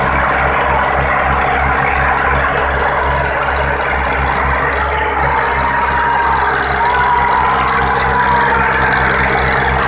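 Two diesel tractors, one an Ursus 2812, running hard under full load in a chained tug-of-war, their engines making a loud, steady pulsing drone. From about halfway through, a thin wavering squeal sounds over the engines.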